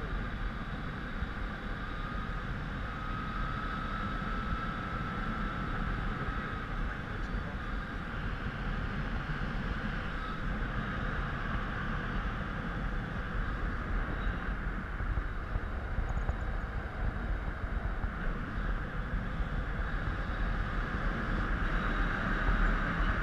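Steady wind rush on a helmet-mounted action camera's microphone during a tandem paraglider flight, with a faint thin whistle a few seconds in; it gets slightly louder near the end.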